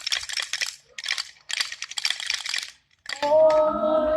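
Wooden Easter rattles (Klappern) clattering in repeated bursts of rapid clicks, each about a second long. About three seconds in, several voices break into a loud chant together.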